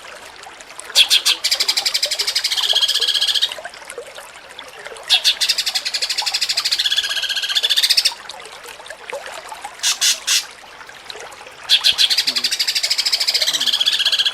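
A cucak cungkok singing, its song in the 'jengking munting' style. Three phrases of fast, rattling, repeated high notes, each lasting two to three seconds with short pauses between them, and a brief pair of notes just before ten seconds in.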